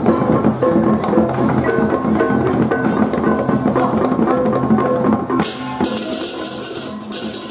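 Balinese baleganjur gamelan playing: kendang drums and tuned hand gongs in a fast, dense rhythm. About five seconds in, the cengceng kopyak crash cymbals come in loudly over the drums.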